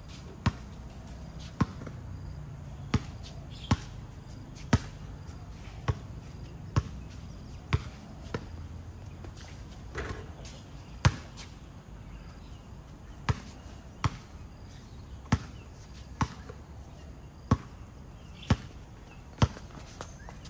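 Basketball bouncing on a hard court, a sharp bounce about once a second with a short pause in the middle, over a steady low hum of background noise.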